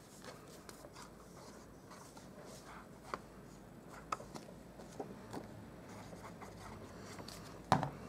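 Faint handling sounds of cardstock being glued and laid onto a card base: soft paper rustling and a few small taps, then one louder knock near the end.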